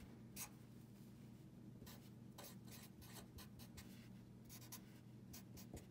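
Sharpie felt-tip marker writing on paper: faint, irregular short strokes and scratches over a low steady hum.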